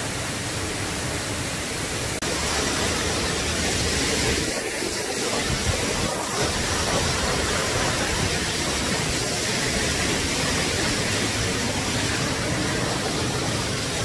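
Waterfall: falling water making a steady rushing noise.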